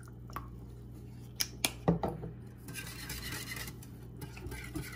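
Metal wire whisk beating a thin milk mixture in a glass bowl. A few light clicks come first, then quick steady whisking from about halfway through.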